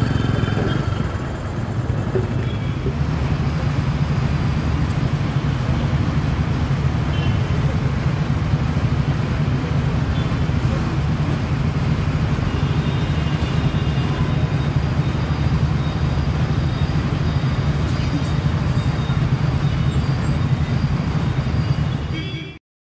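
Road traffic: a steady low rumble of bus, car and motorcycle engines that cuts off abruptly near the end.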